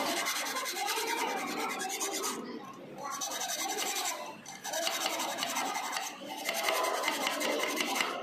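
Hand file rasping back and forth on a metal workpiece clamped in a bench vice, smoothing a freshly cut slot. The strokes run on with short breaks a few times.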